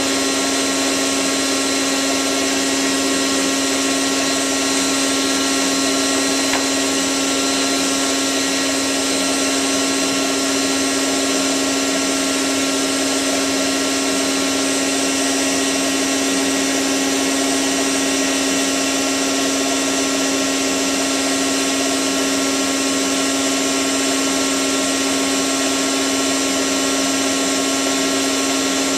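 Hotpoint 9534A washing machine in a steady high-speed spin, its motor giving a steady whine over the rush of the drum.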